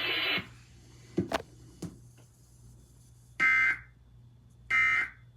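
Electronic alarm beeping: two short, high beeps about a second and a quarter apart. A few faint clicks come before them, and the broadcast audio cuts off about half a second in.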